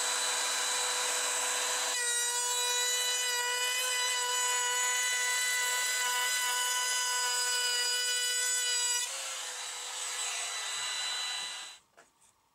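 Cordless trim router running at high speed and routing a groove into a pine board, a steady high whine with a rasping cut. About nine seconds in the cutting eases off, and just before the end the motor stops, followed by a few faint taps.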